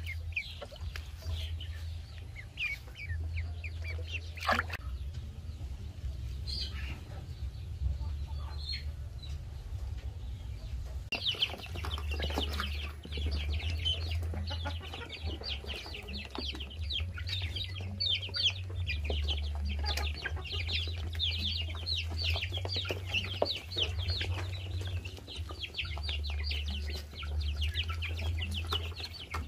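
Young chicks and ducklings peeping: a few scattered high peeps and a couple of sharp knocks at first, then from about 11 s in a dense, continuous chorus of short, high, downward-sliding peeps from a flock feeding together. A steady low rumble runs underneath.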